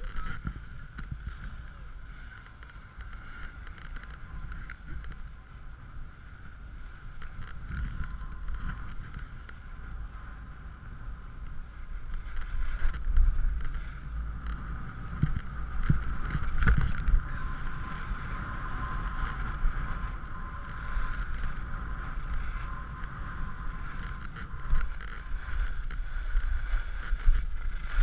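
Wind buffeting a GoPro's microphone as a skier runs downhill, with skis hissing and scraping over packed, groomed snow; it grows louder and rougher about twelve seconds in.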